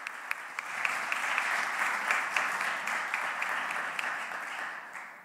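Audience applauding in a hall, many hands clapping at once, dying away near the end.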